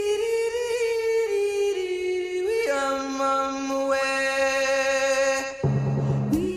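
Music: a long held sung note that moves to a new held chord about halfway through, then a low note and drum hits near the end.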